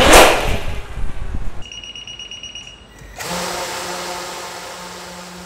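Zipline fixed-wing delivery drone fired off its catapult launcher: a loud rushing whoosh right at the start that dies away within about a second and a half. A short electronic beeping follows. From about three seconds in there is a steady hum with a rushing sound that slowly fades.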